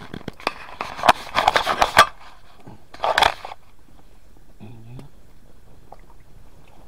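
Crunching and scraping of packed snow close to the microphone, with a few sharp knocks, in bursts over the first two seconds and again about three seconds in; then quiet apart from a brief faint voice.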